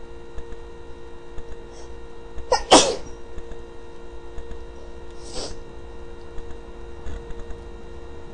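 A person sneezes once: a short voiced rise into a loud, sudden burst about two and a half seconds in. A softer breathy burst follows a few seconds later, over a steady low hum.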